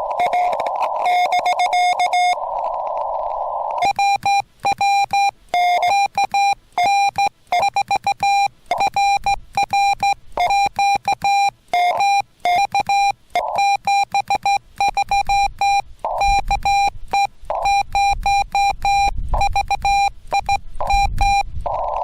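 Morse code (CW) from a Yaesu FT-891 transceiver: a single whistle tone keyed on and off in dots and dashes. For about the first two seconds the code comes through hiss from the receiver's narrow CW filter. A second and a half of that filtered hiss alone follows. From about four seconds on, a slightly higher, clean tone is keyed with silent gaps, like the rig's sidetone as the operator sends on a straight key.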